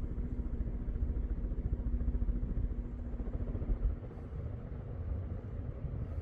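Early-1990s Air Cool ceiling fan running on high speed: the airflow from its blades buffets the microphone with an uneven low rumble, over a faint steady motor hum that fades out about four seconds in.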